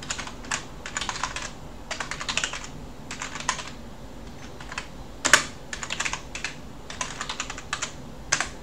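Typing on a computer keyboard: quick bursts of key clicks with short pauses between them, and one louder key strike about five seconds in.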